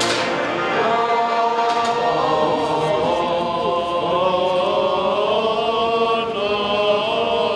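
Choral chant: several voices singing slow, long-held lines that slide gently in pitch, with a wavering high voice near the end.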